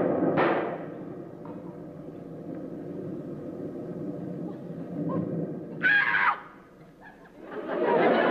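Dramatic orchestral music with timpani and gong strokes fading out in the first second, then a low quiet stretch broken by a short, loud, high-pitched sound about six seconds in. Studio audience laughter swells up near the end.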